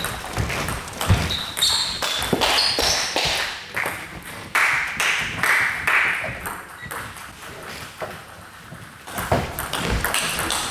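Table tennis rally: the celluloid-type ball clicking off bats and table in quick succession. Play stops for a few seconds in the middle, and a new rally of clicks starts near the end.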